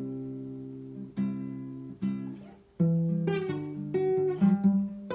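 Acoustic guitar playing chords without singing. Each chord is struck and left to ring, about once a second, then a quicker run of strums comes in after a short gap near the middle.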